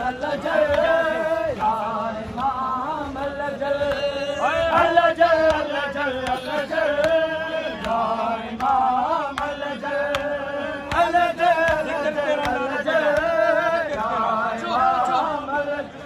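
Men chanting an Urdu noha, a Shia mourning lament, together in a repeated melodic phrase that rises and falls.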